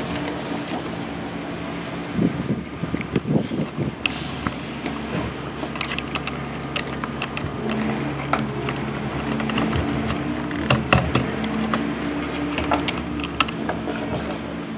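Small clicks and rattles of a diecast toy rear-load garbage truck and its plastic trash carts being handled, with crumpled paper rustling, over a steady low hum. The clicks come thickest a couple of seconds in and again past the middle.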